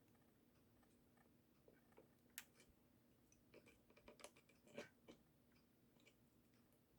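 Faint, irregular clicks and taps of pliers and small plastic parts as a bent gear wheel in a dancing toy's top mechanism is eased back into line; the sharpest clicks come about two and a half and nearly five seconds in, over a faint steady hum.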